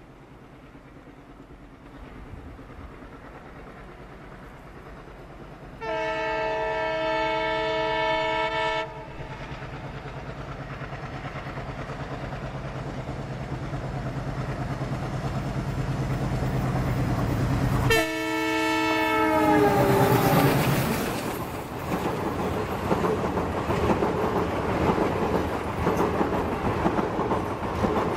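Twin ALCo WDM3A diesel locomotives approach with their engine drone growing louder, and sound a steady chord horn for about three seconds. A second horn blast comes as they pass close by, its pitch falling as they go. The express's coaches then roll past, their wheels clattering over the track.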